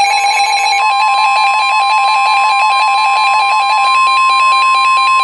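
Weather radio emergency alert tones: several steady electronic tones sounding together. One drops out about a second in and another about four seconds in, leaving a single high steady tone.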